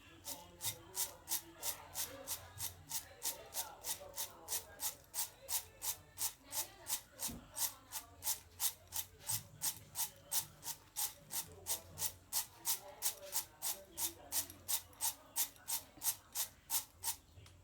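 Roasted peanuts being rubbed to loosen and strip their papery skins: a steady rhythm of dry rustling strokes, about three a second.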